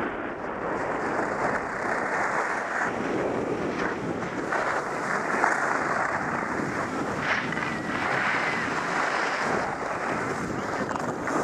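Steady rush of wind over the microphone of a skier's camera, mixed with the hiss of skis sliding on packed snow, swelling a little now and then.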